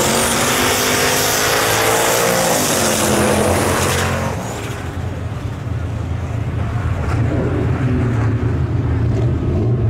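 Turbocharged LS V8 in a square-body Chevy C10 pickup at full throttle, launching and accelerating hard on ice, its pitch climbing for the first few seconds. It then fades after about four seconds as the truck pulls away down the track.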